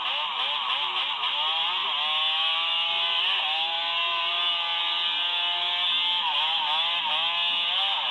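Yamaha Banshee ATV's two-stroke twin engine revving hard. The pitch swings quickly up and down in the first couple of seconds, then holds high and steady, and dips and climbs again a few times near the end.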